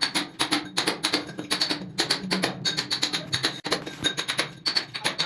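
Music with a fast, clicking percussive beat.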